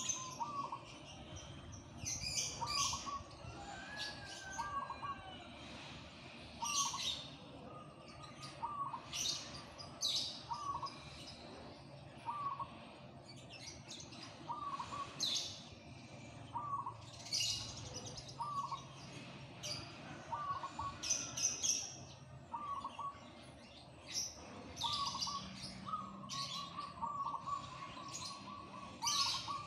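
Caged zebra dove (perkutut) in full song, cooing short repeated notes about once a second, with a longer held note near the end. Louder, higher chirping comes and goes over it.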